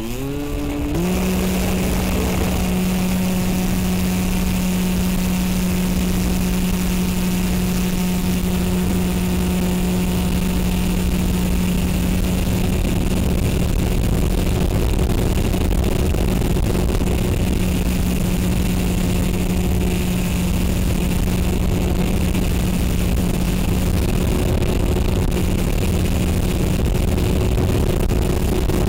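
FPV model aircraft's motor and propeller spooling up over about the first second, then running at a steady pitch for the rest of the flight, over a steady hiss.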